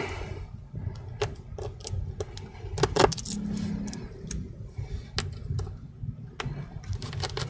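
Small, irregular metallic clicks and taps of a Torx screwdriver driving the hinge screws into a MacBook Air's aluminium case, with one louder click about three seconds in.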